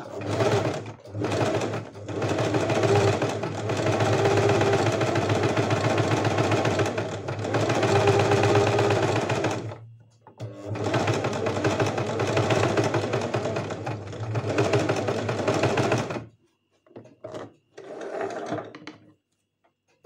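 Domestic sewing machine running at speed, stitching a zigzag seam. It runs in two long stretches with a stop of about a second in between, then halts, leaving only a few faint handling sounds near the end.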